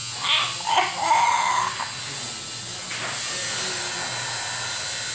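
A woman's pained cry as a piercing needle goes through her nose: two short yelps, then a drawn-out wavering moan lasting under a second. A steady electric buzz runs underneath.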